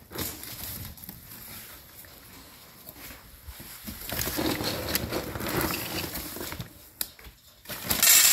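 Dry dog kibble rattling and crunching as bully dogs are fed from bowls on a tiled floor, swelling about halfway through, with a short sharp clatter near the end.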